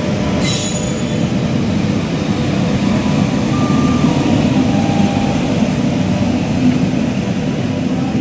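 Electric passenger train, a WAP-7 locomotive and its coaches, passing close at speed: a loud, steady rumble of wheels on the rails, with a brief high-pitched hiss about half a second in.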